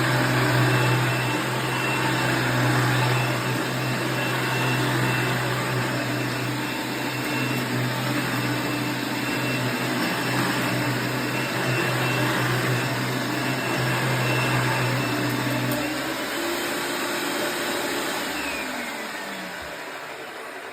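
Mid-1990s Dirt Devil Plus upright vacuum cleaner running with a steady motor hum and rushing air. About three-quarters of the way through it is switched off, and the motor winds down with a falling whine as the sound fades.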